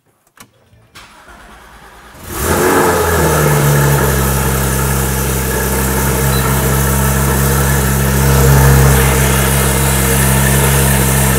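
Porsche 991 GT3 flat-six breathing through a newly fitted Dundon Motorsports exhaust and headers, firing up about two seconds in and settling into a steady, loud idle.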